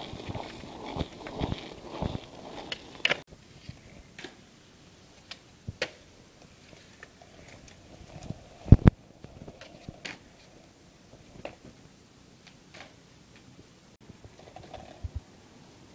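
Skateboard wheels rolling over rough concrete with a quick run of clicks over the pavement joints. This gives way to quieter stretches of scattered clacks and one loud clack of the board a little under nine seconds in.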